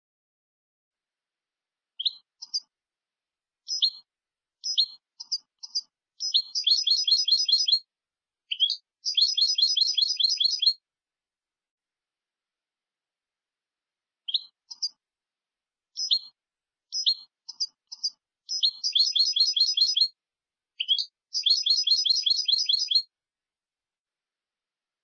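European goldfinch (jilguero) singing a clean song for training young birds: two matching phrases, each opening with a few separate high chirps and running into a long, fast trill of repeated notes, with complete silence between them.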